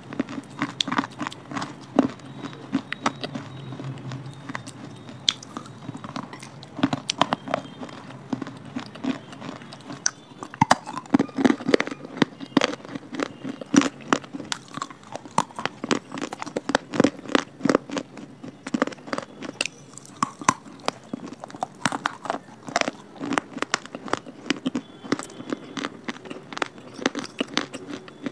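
Crunching and chewing of broken clay-pot pieces: dense, irregular sharp cracks as the hard clay is bitten and ground between the teeth.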